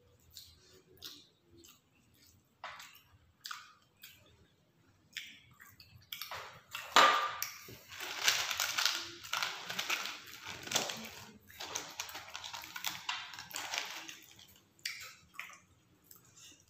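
Close-up eating and table-handling noises: scattered small clicks and smacks, then from about seven seconds in a loud, dense crackling and rustling that lasts several seconds before thinning back to a few clicks.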